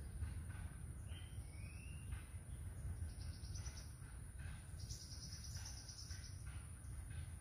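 Quiet outdoor ambience of small birds and insects: a short rising whistle about a second in, then high trilling chirps about three and five seconds in, over a steady low rumble and a thin constant high tone.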